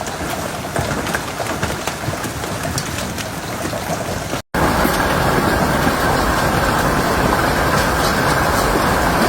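Heavy storm rain with hail, a steady rush speckled with many sharp hail strikes. After a cut about four and a half seconds in, it turns to a louder, duller, even downpour.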